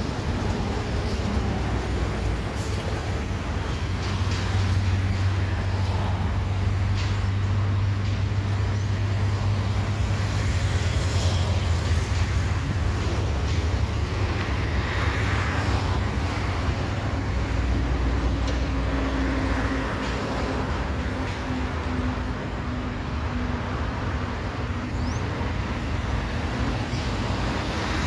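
Road traffic noise: a steady mix of passing vehicles' engines and tyres, with a continuous low engine hum.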